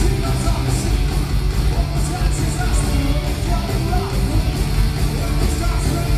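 Live heavy metal band playing loudly: electric guitars, bass and drums with repeated cymbal hits, under a lead singer's voice, recorded from within the crowd.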